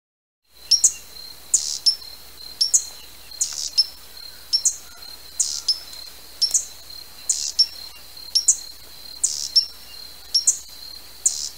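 Hummingbird giving sharp, high chip calls, repeated irregularly about once or twice a second, over a thin steady high tone.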